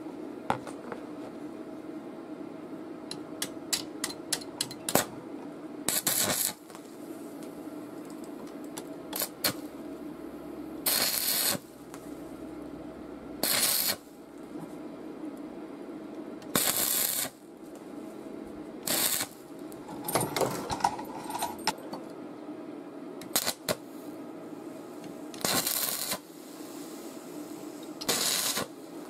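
Stick (arc) welding on a steel chain swivel: the electrode crackling in short bursts of about half a second to a second, some ten in all with pauses between, as short welds join the swivel to the chain. A run of quick clicks a few seconds in, and a steady low hum underneath.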